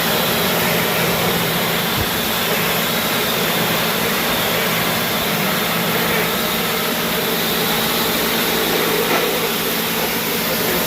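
A machine running steadily: a constant low hum under an even, wide hiss.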